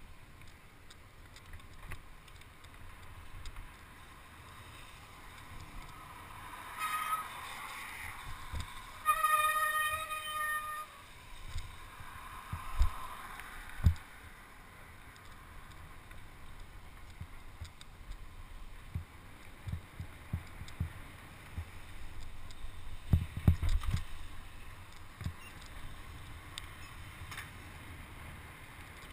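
Wind rushing over a helmet-mounted camera's microphone and tyre hiss on wet asphalt as a mountain bike rolls down a road, with frequent low thuds from bumps. About nine seconds in, a steady buzzy tone sounds for about two seconds.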